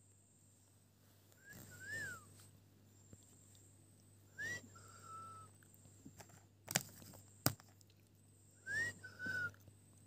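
Alexandrine parakeet giving three soft whistled calls, each a quick upward glide followed by a short falling or held note. Two sharp clicks come between the second and third calls.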